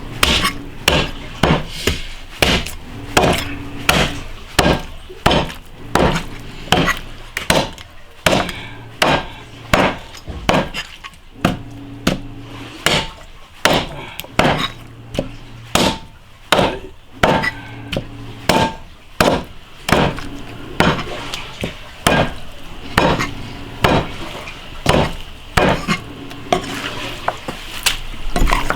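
Meat cleaver chopping bone-in lamb on a wooden chopping block, in steady repeated chops about three every two seconds.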